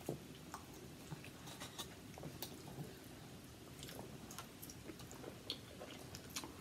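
Faint sounds of people eating pasta at a table: soft chewing with scattered light clicks and ticks.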